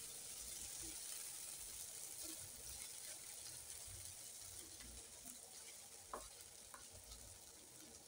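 Chips in a tomato masala sauce sizzling faintly in a non-stick frying pan over a gas burner as the pan is stirred and tossed. The sizzle slowly dies down, with two light knocks about six seconds in.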